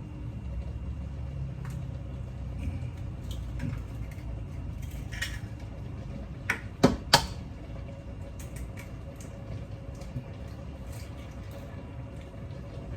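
Eggs knocked against the rim of the rice cooker's pot to crack them in: three sharp knocks close together about six and a half seconds in, with a few lighter taps earlier, over a low steady rumble from the cooking pot.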